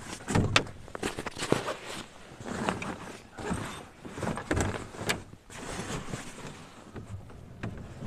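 Rummaging in a car's plastic roof cargo box: bags and gear rustling and shifting, with many small clicks and knocks against the box's shell.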